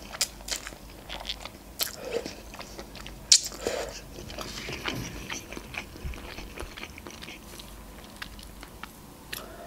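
A person eating instant noodles off a fork and chewing: wet mouth smacks and sharp clicks, with one loud smack a little over three seconds in.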